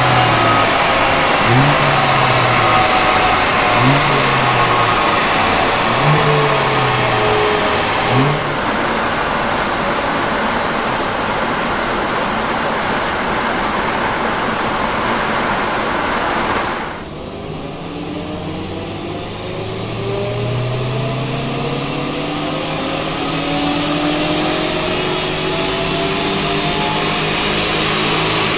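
Turbocharged 2.0-litre four-cylinder of a stock VW Golf GTI Mk8 running hard on a chassis dynamometer, its pitch swelling and falling about every two seconds at first, then holding steady at high revs with a lot of hiss. About two-thirds of the way through the sound turns duller and quieter, as heard from inside the cabin, with the engine pitch climbing slowly under full load in fourth gear.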